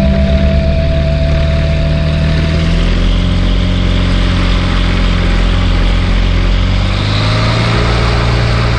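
Kitfox light aircraft's engine and propeller running as it rolls down the runway, with rushing air over the wing. The engine pitch drops about three seconds in as the power comes back, then rises slightly near the end.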